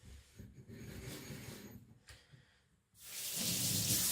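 Tap water running hard onto a whetstone to clean it, switched on about three seconds in with a loud hiss and splash, after a softer stretch of rubbing and handling noise.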